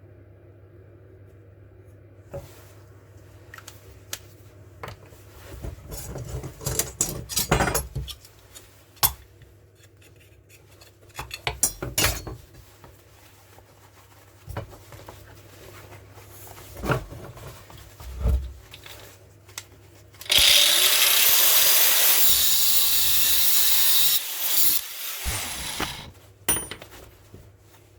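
Scattered knocks and clanks of an iron rod being handled and struck. Then an angle grinder spins up and runs loudly for about four seconds, cutting through the 8 mm iron rod, and winds down.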